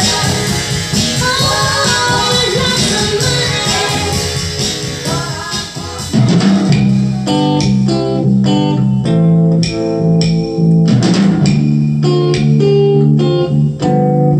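Recorded pop music played loud over PA speakers in a room. A song with singing runs until about six seconds in, then a different track takes over with a bass line and plucked guitar notes.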